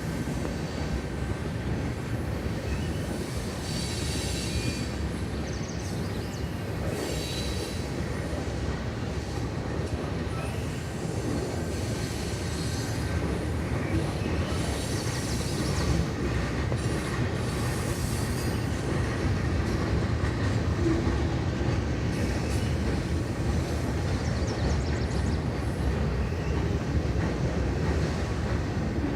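CN freight train's cars rolling past on the track: a steady rumble, with the wheels squealing briefly several times.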